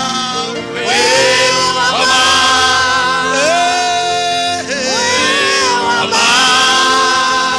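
Gospel worship music: singing in long held, sliding notes over sustained keyboard-like chords.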